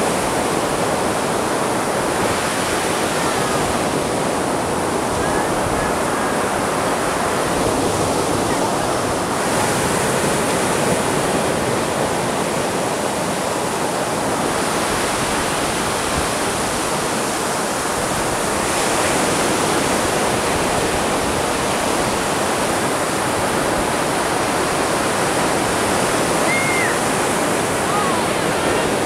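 Atlantic surf breaking on a sandy beach: a steady wash of waves crashing and running up the shore, its hiss swelling and easing every several seconds.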